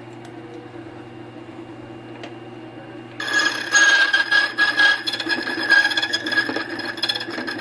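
Borkey key duplicating machine's motor running. About three seconds in, its cutter wheel bites into a Schlage key blank: a loud, high grinding with a steady ringing tone as the key is cut.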